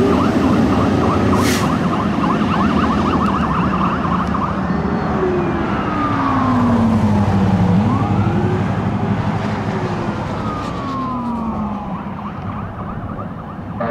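Fire engine's siren sounding as it drives off, changing about four seconds in from a fast yelp to a slower rising and falling wail. The truck's engine runs underneath, and the sound fades a little near the end as it moves away.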